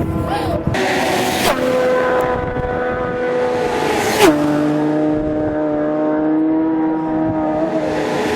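Racing motorcycles passing close at high speed. The engine note holds high, then drops sharply as a machine goes by, twice, each pass with a brief rush of air and engine noise.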